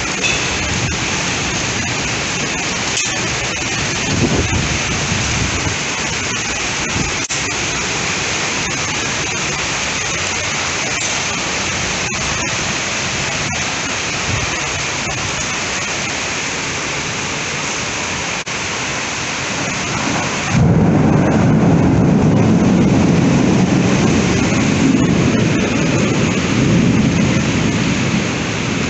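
Heavy rain pouring steadily during a thunderstorm. About two-thirds of the way through, the sound switches abruptly to a louder, deeper rumble with less hiss.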